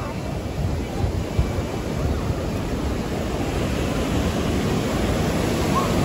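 Ocean surf breaking and washing up a sandy beach in a steady rush, with faint voices of people in the water near the end.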